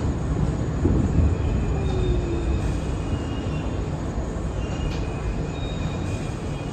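R62 subway train running on the rails with a steady rumble, a heavier surge about a second in, and thin high-pitched wheel squeals that come and go from about a second and a half in.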